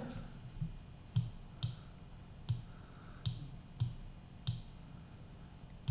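Computer mouse buttons clicking about seven times at uneven intervals, while the Shift key is held to add to a selection.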